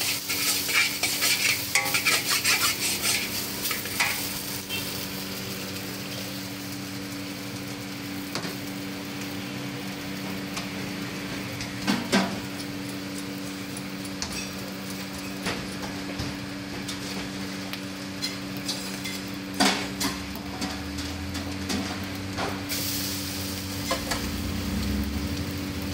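A steel spatula scrapes and clatters quickly in a wok as egg and vegetables are stir-fried, then the food sizzles steadily in the hot wok under a constant hum, broken by a few single clanks of the spatula. A low rumble comes in near the end.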